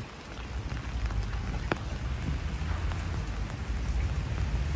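Steady rain falling, with a single sharp drip tick about a second and a half in.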